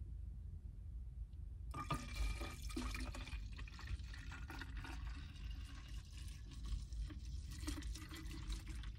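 Antiseptic mouthwash being poured from a plastic bottle into a plastic Gatorade bottle, the liquid splashing and filling it. The pouring starts about two seconds in and goes on steadily over a low rumble.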